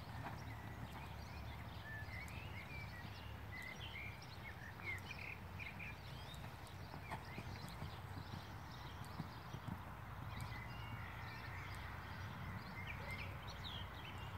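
Hoofbeats of a horse trotting on a sand dressage arena, under a steady low rumble, with a few short high chirps at times.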